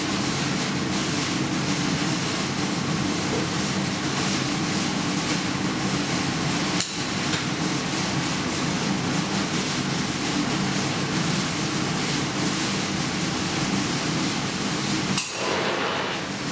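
Steady, dense industrial noise of a metal-casting foundry during a pour of molten metal from a crucible. It is broken by two brief dropouts, about seven seconds in and near the end.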